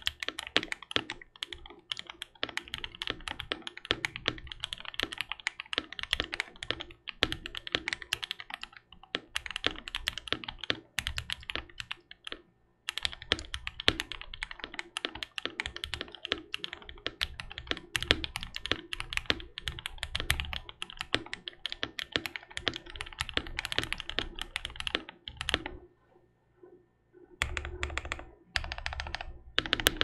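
Fast, continuous typing on a Freebird 60 60% mechanical keyboard fitted with JWK Black linear switches, its tray mount modded into a gasket-style mount. There are two brief breaks in the typing, about twelve seconds in and again about twenty-six seconds in.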